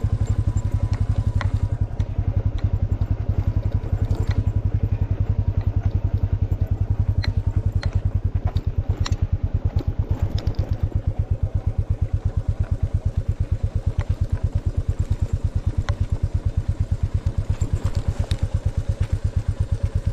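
Royal Enfield motorcycle engine idling with a slow, even thump and a few light ticks over it.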